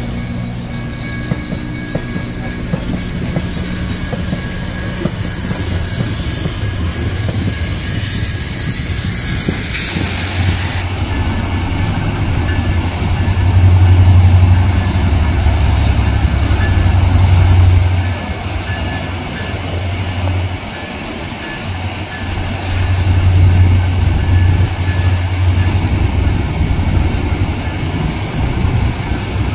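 Polson Logging Co. #2, a small steam locomotive, passes slowly with its coach, with a steady hiss. About ten seconds in, this gives way to the low rumble of Union Pacific diesel locomotives moving along the tracks. The rumble swells, dips briefly past the middle, and swells again.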